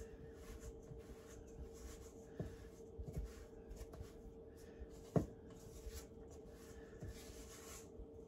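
A spoon scraping and stirring a thick yogurt-and-flour dough in a glass bowl, with a few knocks of the spoon against the bowl, the sharpest about five seconds in. A faint steady hum sits underneath.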